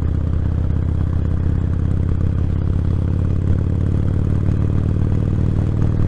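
Motorcycle engine running steadily at road speed, a low even drone, heard through a microphone in the rider's helmet cheek pad, with wind noise in the helmet.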